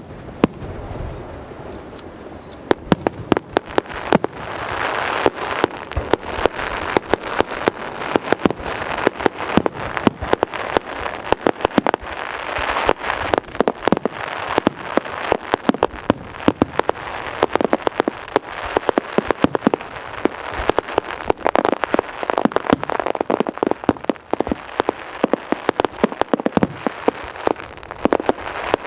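Aerial fireworks display: a dense, unbroken run of sharp bangs and pops over a steady crackle, sparse for the first couple of seconds and then packed tight.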